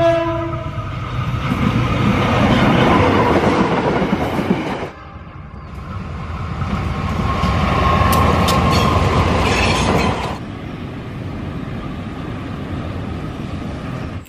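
A KAI diesel locomotive's horn sounds for the first half second. It is followed by three diesel-hauled trains passing one after another, the engines running and the wheels rolling over the rails. The sound changes abruptly at about 5 and 10 seconds in as one passing gives way to the next.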